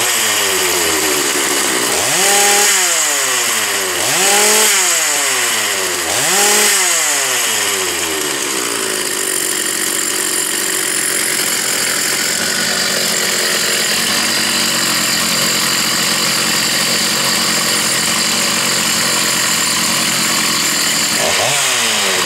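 Stihl 066 Magnum two-stroke chainsaw engine running and being revved. There are three quick throttle blips in a row, each a fast rise in pitch and a slower fall. The engine then runs steadily for a long stretch, and one more blip comes near the end.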